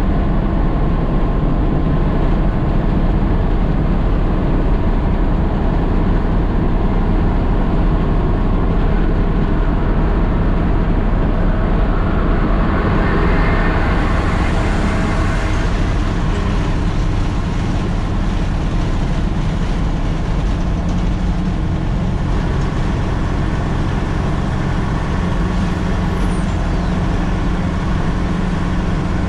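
Diesel engine of a Nissan CK 31 L concrete pump truck running steadily under way, with a drone of engine and road noise. A brief swell of hissing noise comes about halfway through.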